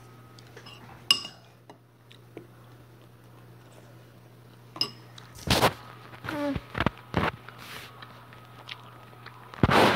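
A few light clinks and knocks, like dishes or cutlery being handled, over a steady low hum.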